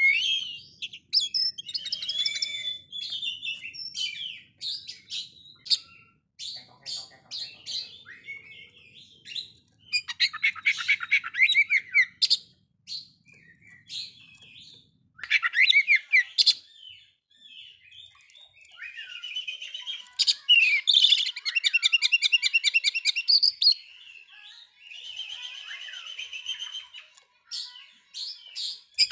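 Oriental magpie-robin singing a varied song in bursts: gliding whistled phrases, fast rattling trills and sharp clicking notes, with short pauses between phrases.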